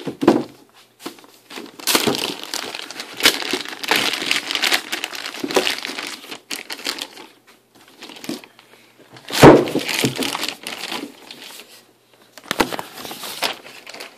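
Plastic packing bag crinkling and rustling in irregular bursts as a network switch is unwrapped from its bag and foam packing, with one louder knock about nine and a half seconds in.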